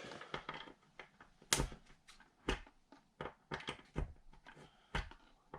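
Irregular sharp clicks and knocks of plastic and metal, four louder ones about a second apart, as a plug is pushed into and handled at a newly installed three-prong wall outlet to test it.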